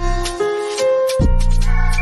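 Beat-driven instrumental music with heavy bass notes and sustained melody notes over a regular drum pattern.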